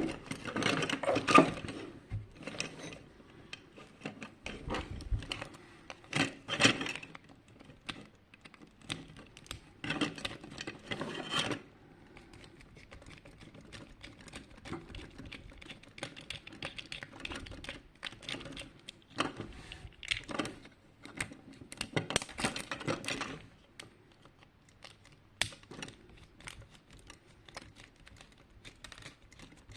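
Irregular clicks, taps and rustling of the small plastic parts of a projection alarm clock being handled as it is taken apart. The clicks are busier in the first half and thin out to sparse ticks near the end.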